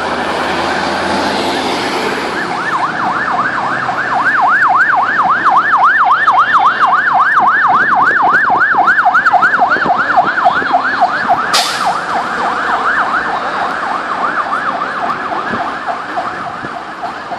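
Fire engine siren on a fast yelp, sweeping rapidly up and down about three times a second. It grows louder, then fades as the truck passes. A brief hiss cuts in about two-thirds of the way through.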